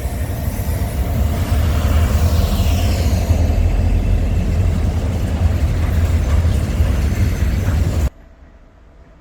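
A train passing close by at speed: a heavy rumble and rushing noise that cuts off abruptly about eight seconds in.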